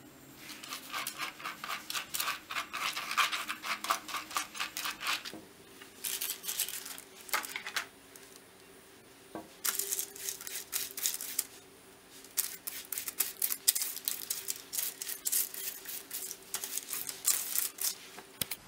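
Silicone pastry brush swept rapidly back and forth, spreading vegetable oil over a silicone baking mat and baking paper: quick scratchy rubbing strokes in four spells with brief pauses between them.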